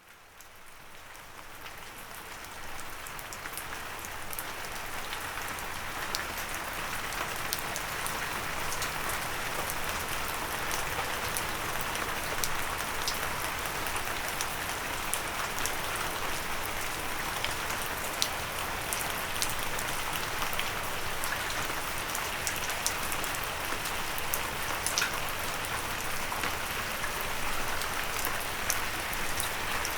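Steady rain with scattered louder drops ticking on a windowsill, fading in from silence over the first few seconds.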